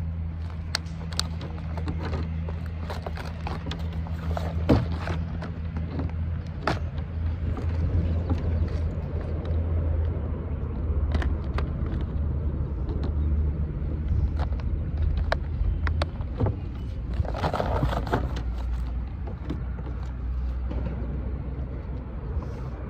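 A steady low motor hum drones throughout, dropping to a lower pitch about two-thirds of the way through. Over it come scattered clicks and rattles of a plastic tackle box being opened and sorted by hand.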